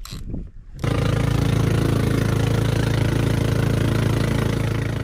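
Engine of a motorized outrigger boat (bangka) running steadily under way, starting suddenly about a second in.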